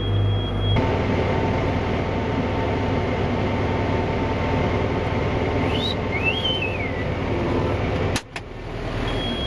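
Tractor engine running steadily, heard from inside the cab while driving. About six seconds in, a man whistles briefly, a short note that rises and then falls.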